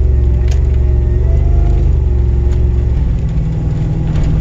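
Turbocharged car engine pulling at light, steady throttle, its tone wavering up and down: the boost surging because the engine is running lean, in the driver's words.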